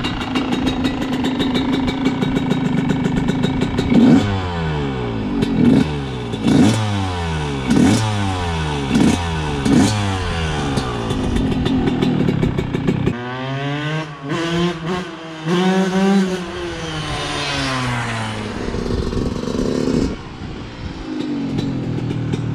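A 2004 Yamaha YZ125's single-cylinder two-stroke engine idling, then blipped sharply about six times. Near the middle its pitch climbs and falls in one longer run before it settles back to idle.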